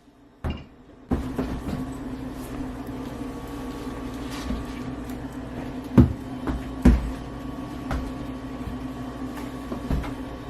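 Refrigerator switching back on through its newly fitted temperature control: a click, then about a second in the compressor starts a steady hum that runs on. Several sharp thumps sound over the hum.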